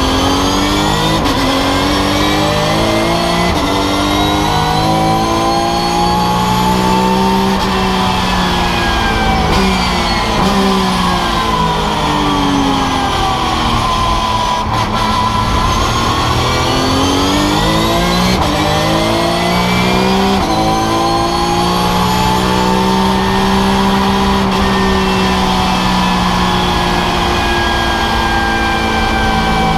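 Porsche 911 GT3 Cup race car's flat-six engine heard from inside the cockpit at speed, climbing through the gears in several rising steps. Its pitch falls about halfway through as the car slows, then climbs through the gears again and eases off near the end.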